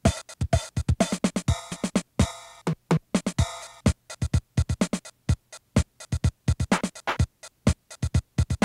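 Electronic background music: a drum-machine beat of sharp, quickly repeating hits, with synthesizer chords in the first few seconds.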